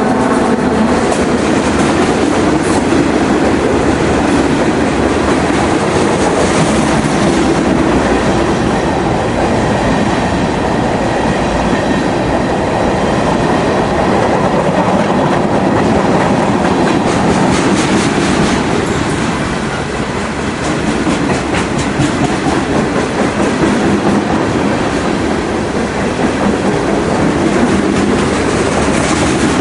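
Freight cars of a long train rolling past: a steady rumble and rattle of steel wheels on rail, with repeated clicks as the wheels cross rail joints.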